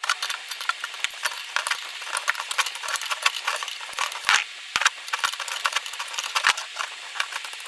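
Needle-nose pliers gripping and turning a tight spoke nipple on a BMX wheel: a dense run of small metal clicks, scrapes and rattles as the nipple is worked loose and its head is chewed up by the jaws.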